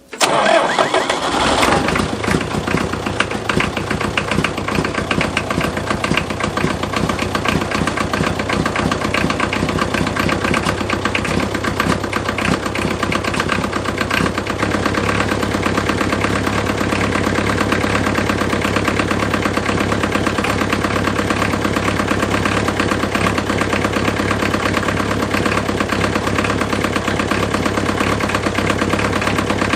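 John Deere 2010 tractor's four-cylinder diesel engine cold-started after a glow-plug preheat: it fires at once, runs louder for a second or two, then settles into a steady idle.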